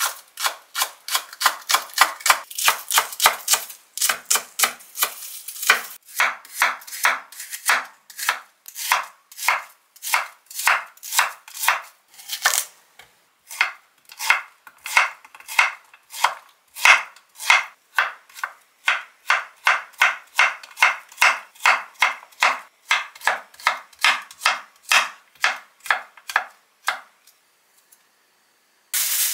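Kitchen knife chopping green onion and then cutting zucchini into strips on an acacia wood cutting board: steady knife strokes against the board, about three a second, stopping shortly before the end.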